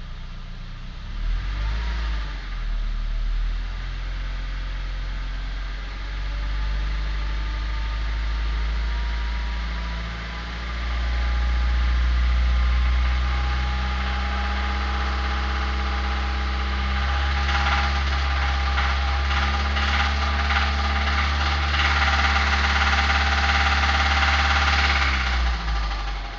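Suzuki Grand Vitara engine starting about a second in and running, its speed rising and falling, with a rhythmic knock that is plain in the second half. This is connecting-rod knock: the rod bearings have spun from oil starvation after a holed oil pan.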